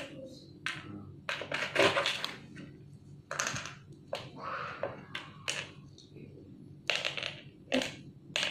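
Small congkak playing pieces dropping into the hollows of a plastic congkak board: a string of irregular sharp clicks and taps as they are sown one by one into the holes.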